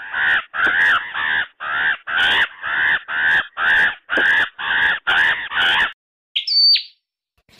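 White-crested laughingthrush calling: a run of harsh notes repeated about two to three times a second, stopping about six seconds in. A brief, higher-pitched sound follows shortly after.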